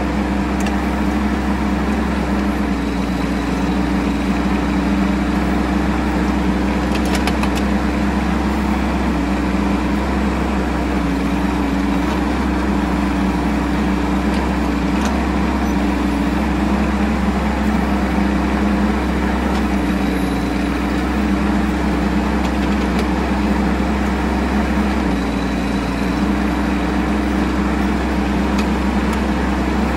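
Bobcat E10 mini excavator's diesel engine running steadily as it digs a trench, its pitch dipping slightly every few seconds. A few faint clicks come through.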